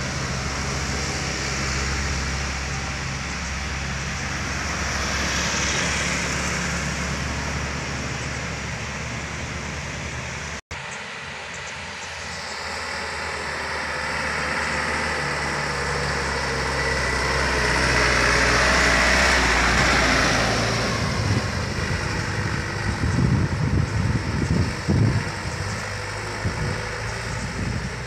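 Diesel engines of loaded sugarcane trucks running as they come through a sharp bend, with a swell of engine and tyre noise as one truck passes close about two-thirds of the way in. The sound drops out for an instant about a third of the way in, and gusts of wind buffet the microphone near the end.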